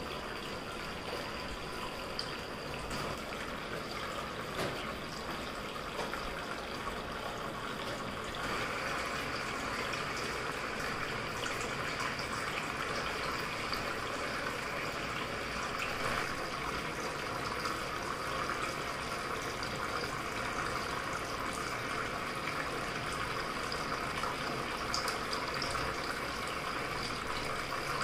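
Handmade tabletop waterfall fountain running: thin streams of water falling into its basin and spilling over a spout into the lower tray, a steady trickling and splashing. It gets a little louder about eight seconds in.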